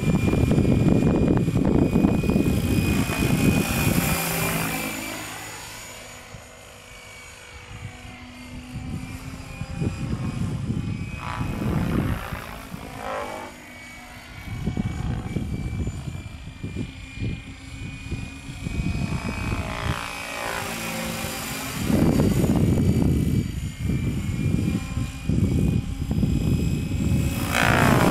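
Radio-controlled Hirobo Sceadu model helicopter in a Bell 222 scale fuselage flying at high rotor head speed, with a steady rotor chop and whine. It grows louder as it passes close and fades as it flies off, and the pitch sweeps down as it goes by.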